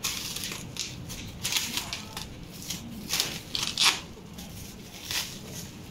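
Clear 10-micron stretch wrap film crackling and crinkling as it is pulled off the roll and stretched and pressed by hand, in several short irregular rustles, the loudest about four seconds in.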